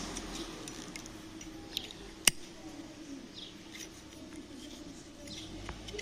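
Small metal clicks and scrapes of a cheap Zippo-style slim lighter's lid being forced shut, with a sharp click about two seconds in and another at the very end. The lid and hinge have warped from the heat of cooking, so the lid closes only badly.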